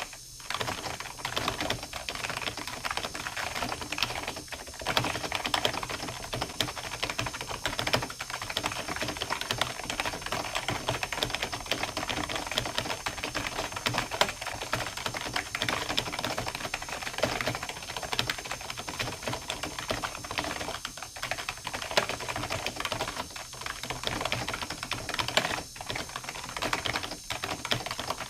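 Continuous fast typing on a computer keyboard: a dense run of key strokes with a few brief pauses.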